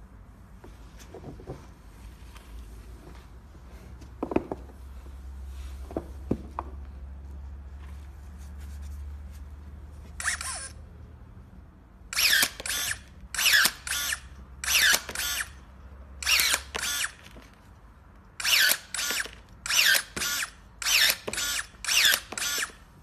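Kingson battery-powered electric pruning shear cutting through a wooden branch: a rapid run of short, loud motor whirs in the second half, many in quick pairs as the blade is driven shut and back open. Before that there are only a few quiet handling knocks.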